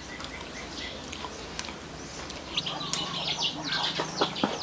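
Small birds chirping rapidly and continuously, starting a little past halfway, over steady outdoor ambience; before that, only a few faint clicks.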